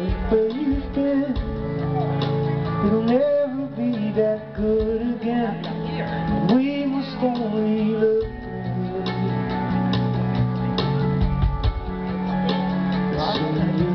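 Live indie rock band playing through a festival PA, heard from the crowd: electric guitars, drums, keyboard and strings, with a singing voice carrying a melody in the middle.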